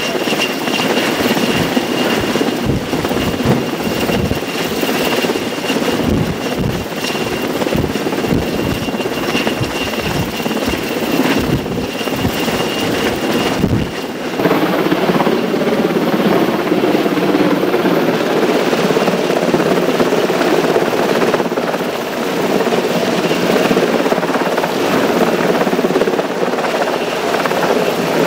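Military helicopter hovering low overhead, its rotor and engine noise loud and steady with a thin whine above it. For roughly the first half, wind gusts buffet the microphone; after that a steadier drone carries on without the buffeting.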